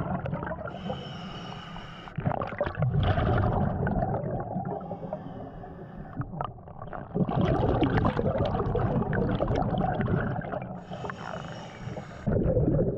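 Scuba diver breathing through a regulator underwater, heard through the camera: a hissing inhale about a second in and again near the end, with long bubbling exhales between.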